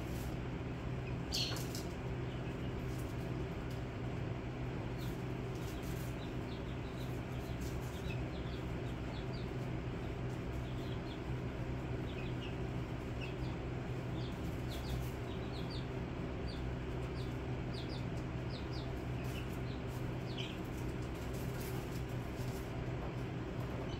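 Young chicks peeping: short, high cheeps scattered throughout, over a steady low electrical hum.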